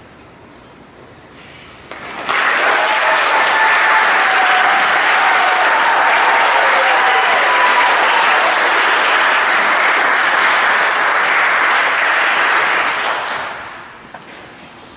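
Church congregation applauding the newly married couple: the clapping breaks out suddenly about two seconds in, holds steady, and dies away near the end.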